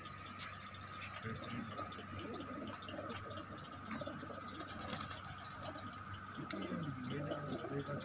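A flock of Lal Sherazi pigeons moving about on a dirt yard: scattered light ticks and rustles from the birds, over a faint steady high tone, with a low wavering sound about seven seconds in.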